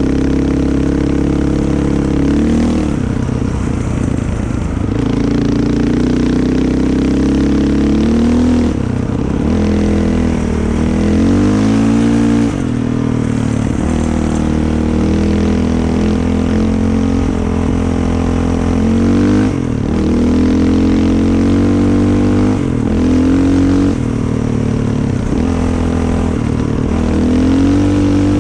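A vehicle's engine running loud and continuously while being driven. Its pitch climbs and drops back again every few seconds as the throttle is opened and eased off, over a steady low drone.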